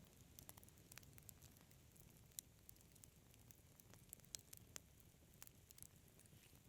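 Wood fire crackling quietly: frequent small, sharp pops and snaps from the burning logs over a soft low rush of flame.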